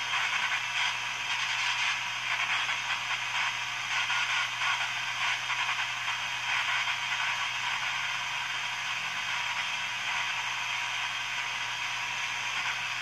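Hallicrafters S-38 shortwave receiver giving out steady static and hiss through its speaker, tuned in the 40-meter ham band, with a low steady hum underneath.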